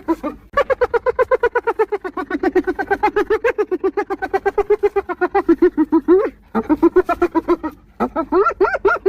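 Spotted hyena giggling: fast runs of short, pitched hoots, about eight to ten a second. One long run breaks off about six seconds in, then two shorter runs follow after brief pauses.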